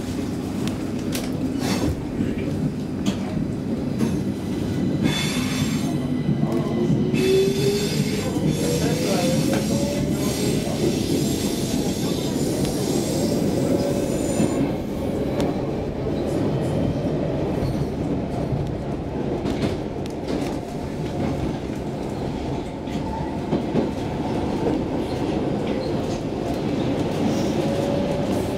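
Stockholm Metro C6 train running, heard from inside the car: a steady rumble of wheels on track. A motor whine rises in pitch for several seconds as the train gathers speed, then holds. High wheel squealing comes and goes in the first half.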